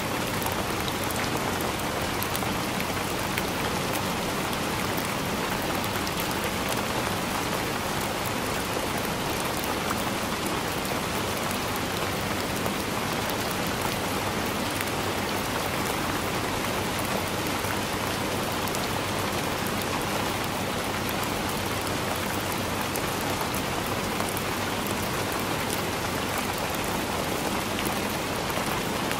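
Heavy rain falling steadily: a dense, even hiss of drops with scattered sharper drop ticks, unchanging throughout.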